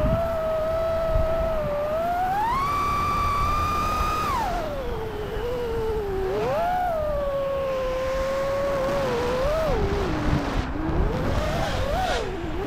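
Brushless motors and props of a 5-inch FPV quadcopter whining in flight, with wind rumble underneath. The pitch climbs sharply about two seconds in as the throttle is punched, holds, falls away near four seconds and then wavers up and down with throttle changes.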